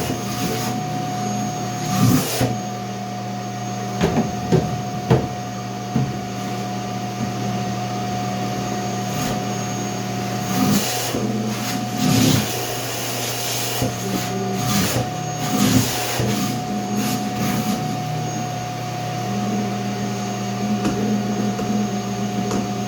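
A steady motor hum with an even pitch runs throughout. Over it come short, scattered bouts of wood being rubbed or scraped and a few knocks.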